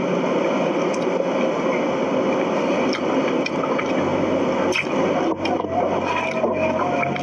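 Steady rushing background noise with a few short mouth clicks and lip smacks from a person eating with her fingers and licking them.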